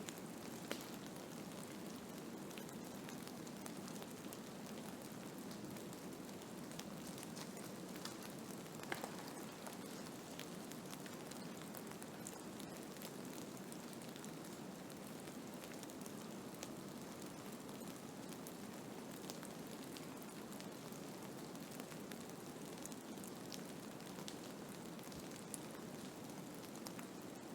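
Blizzard ambience: a steady hiss of wind-driven snow with scattered small ticks throughout.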